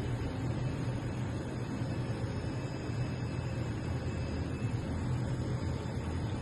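Auto-feed flatbed CNC art card cutter running, a steady low mechanical hum with a noisy hiss over it.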